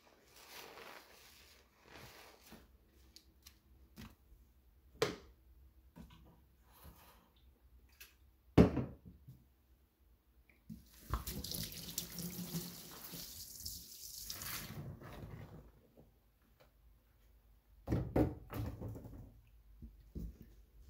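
Water running for about four seconds, with scattered knocks before and after; the loudest is a sharp knock a couple of seconds before the water starts.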